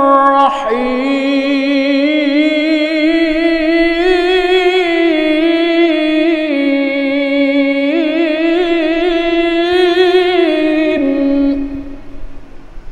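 A male qari reciting the Qur'an in the melodic tilawah style, sung into a handheld microphone. After a short break about half a second in, he holds one long, high phrase with wavering, ornamented turns in pitch, and it ends about a second before the close.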